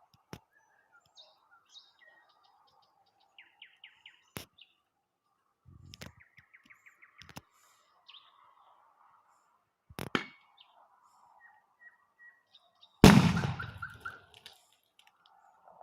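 A loud bang with a rumbling tail about thirteen seconds in, a gas canister bursting in a bonfire, with a smaller bang a few seconds before it and a few sharp pops. Birds chirp throughout.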